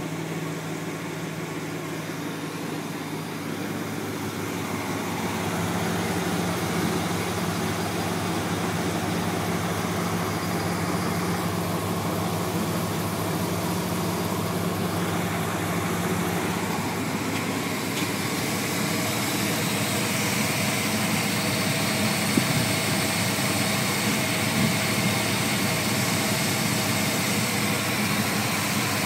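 GMC truck engine idling steadily, getting louder over the first few seconds as it is approached, then heard up close under the open hood. A couple of brief ticks stand out about two-thirds of the way through.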